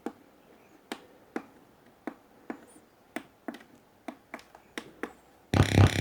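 Sharp, irregular clicks and taps, roughly two a second, from handling the parts and tools of a home theater amplifier under repair. Near the end a much louder sound with a strong low hum cuts in.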